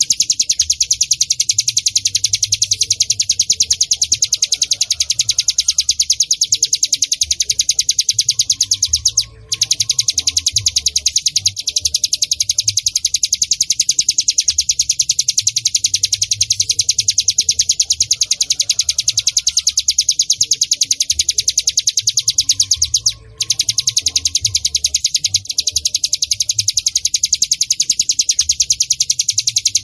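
Ciblek gunung (a mountain prinia) singing: a loud, continuous, very rapid stream of high chirping notes that breaks off briefly twice, about 9 and 23 seconds in.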